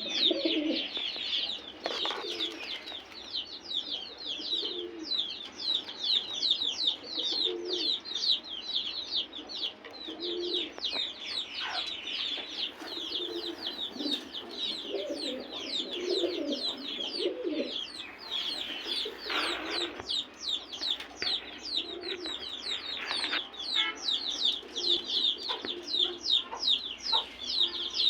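Domestic pigeons cooing in short low phrases every second or two, over a constant rapid, high chirping from other birds.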